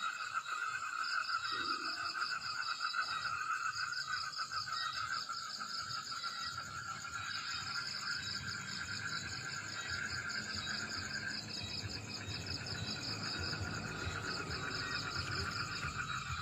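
Night chorus of crickets and other insects: several steady, rapidly pulsing trills at different pitches overlapping, the lowest one dropping back a little past the middle.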